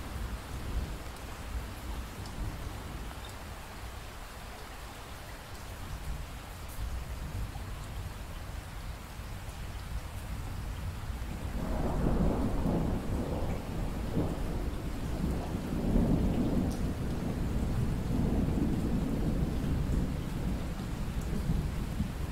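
Rainstorm: steady rain with a low rumble, and rolling thunder that swells up about halfway in and rumbles on in several waves.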